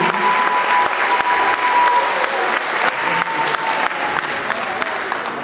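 Audience applauding, a dense patter of many hands clapping that eases a little towards the end. A thin steady tone sounds under the clapping for the first few seconds.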